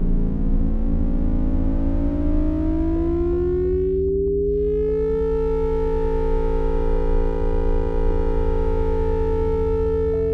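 Electronic synthesizer music: a stack of sine-like tones glides steadily upward for about five seconds, then settles into a sustained drone chord over a low rumble.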